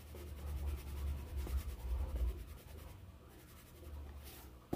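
Faint scratching and rubbing as powdered dry yeast is tipped and shaken from a foam cup into a plastic tub of mashed banana, with a low handling rumble in the first half. A short hiss and a soft knock come near the end.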